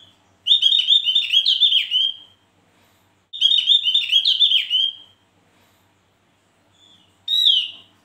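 Caged opior jawa (Javan grey-throated white-eye) singing: two phrases of about two seconds each, rapid runs of repeated high notes that end in a downward slur, then one short falling note near the end.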